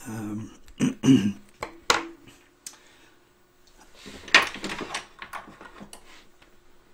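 Drawing tools being handled and set down on a desk: a few sharp clicks and knocks, with a short rustle about four seconds in.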